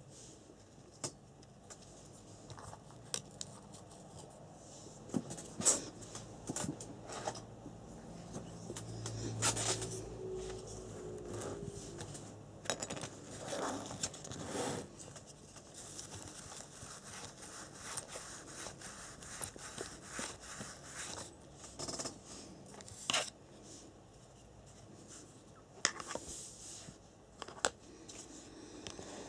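Scattered clicks, taps and scrapes of small plastic and metal parts and a hand tool being handled while working on a radio-controlled buggy's gearbox.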